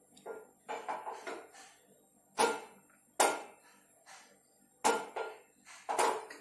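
Metal kitchenware knocking and clinking as a small pan and utensils are handled. There are four sharp knocks spaced roughly a second apart in the second half, with softer clatter in the first second and a half.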